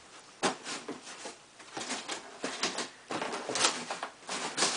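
Cardboard scraping, rustling and knocking as notched cardboard dividers are pushed down into a cardboard box: an irregular run of short scrapes and taps, the loudest about half a second in, three and a half seconds in and near the end.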